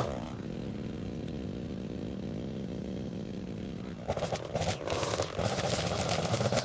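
A small engine of outdoor power equipment running steadily, then turning louder and rougher about four seconds in.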